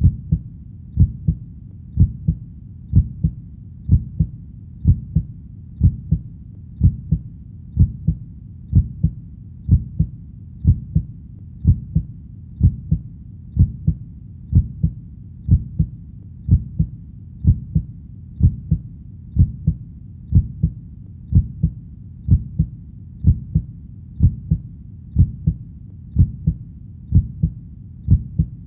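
Steady human heartbeat, each beat a low double thump (lub-dub), about one beat a second, with a soft low rumble between beats.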